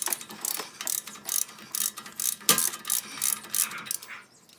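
Ratchet wrench clicking in a string of irregular strokes as the front axle hub nut is tightened down.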